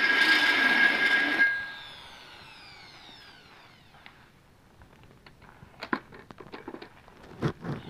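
Angle grinder cutting into a steel bracket, switched off about one and a half seconds in; the disc spins down with a falling whine over about two seconds. After that come a few light clinks and knocks as the tools are handled.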